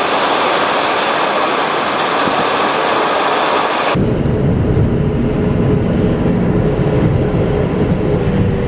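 Storm wind noise: an even hiss for the first four seconds, then an abrupt switch to a low, rumbling wind with a faint steady hum underneath.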